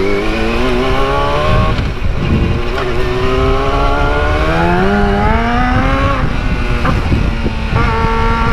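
Yamaha YZF-R6's inline-four engine accelerating through the gears: the pitch climbs, drops at a shift about two seconds in, climbs again and drops at another shift around six seconds in, then holds steadier near the end. Wind noise rushes over the microphone throughout.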